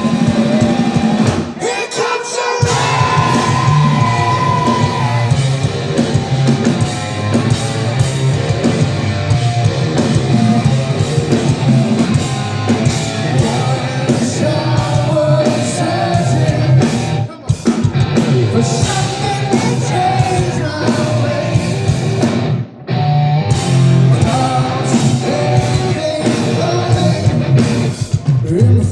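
Live hard-rock band playing with distorted electric guitars, bass and drums, and a male lead vocal singing over them; the band cuts out briefly twice, about seventeen and twenty-three seconds in.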